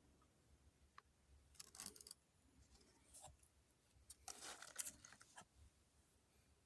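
Faint rustling and clicking of Pokémon trading cards being handled and slid past one another, in a few short spells, the strongest about four and a half seconds in.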